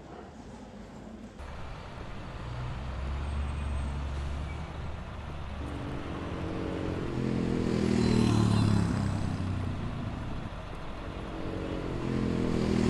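Street traffic: motor vehicle engines running. One vehicle passes close, loudest about eight seconds in, and another comes up near the end.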